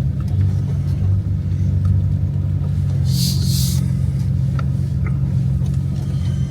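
Pickup truck driving slowly over a rough pasture track, heard from inside the cab: a steady low engine and road rumble, with a brief hissing swish about three seconds in.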